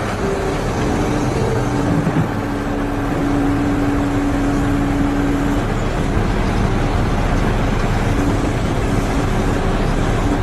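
Steady engine rumble, with a steady held tone over it from about a second in until about halfway through.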